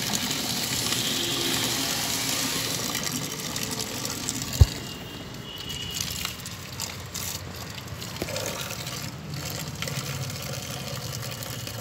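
A thin stream of water from a hose pouring and splashing into the open mouth of a steel bore pipe set in sand. There is a sharp thump a little before halfway, and the pouring is quieter after it.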